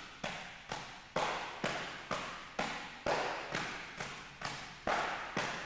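Open palms slapping a filled Iron Palm training bag, two people taking turns in a steady, fast rhythm of about two slaps a second, each a sharp smack that dies away quickly.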